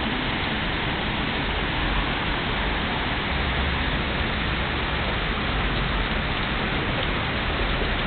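Hail and rain falling steadily onto a gravel-covered flat roof in a hailstorm, an even, unbroken hiss.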